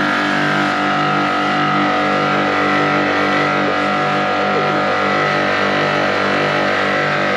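Pressure washer running steadily, with a high whine held on one pitch and a regular pulsing throb underneath, over the hiss of the water spray.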